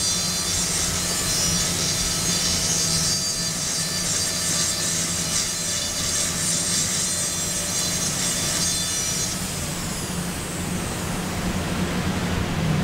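High-speed dental handpiece running with a high-pitched whine while its straight fissure bur cuts a cavity into a typodont molar; about nine and a half seconds in the whine glides down in pitch and stops as the drill is let off. A steady low hum runs underneath.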